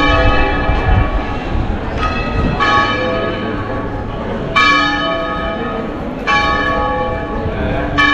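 Church bell ringing nearby, struck about four times some two seconds apart, each stroke ringing on and fading into the next.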